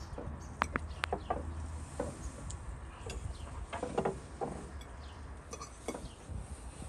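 Metal forks and serving tongs clinking and scraping on ceramic plates as food is served and eaten: a loose series of light clinks and clicks, some with a short ring.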